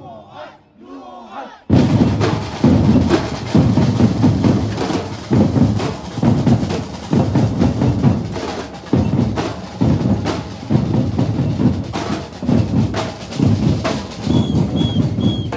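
Batucada drum ensemble playing: surdo bass drums pound a steady beat under snares and other percussion, coming in hard about two seconds in after a short quieter moment with voices. Three short high notes sound near the end.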